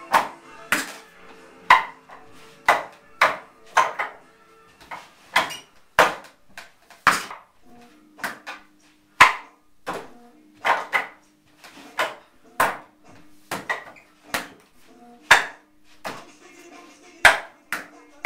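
Hands and forearms striking the wooden arms of a wing chun wooden dummy (mook jong): sharp wooden knocks in an irregular rhythm, about one or two a second, some in quick pairs.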